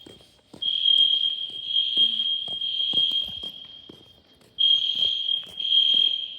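Building fire alarm sounders going off with a loud, steady high-pitched tone in long blasts separated by brief breaks, during a test of the fire alarm system.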